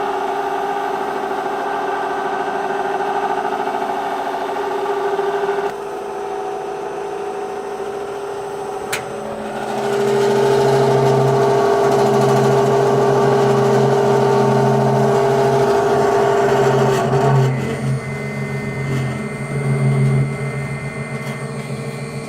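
Quadro Comil 194S conical mill running, a steady motor hum with several tones. The hum changes abruptly in pitch and loudness three times, growing louder and deeper about halfway through.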